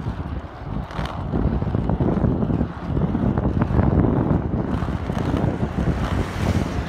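Wind buffeting the microphone over the rumble of skateboard wheels rolling fast on asphalt down a hill; the noise grows louder about a second in as speed builds.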